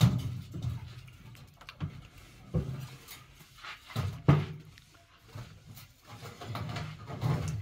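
Several irregular knocks and thuds over a low background, the loudest about four seconds in.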